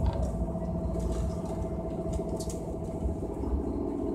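Electric passenger train moving slowly, heard from inside the car: a steady low rumble with a constant hum, and a couple of light clicks.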